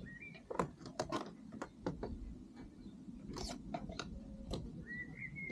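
Plastic wind deflector being worked into place on a car door: about eight scattered clicks, creaks and scrapes of plastic at irregular intervals. A bird chirps briefly near the end.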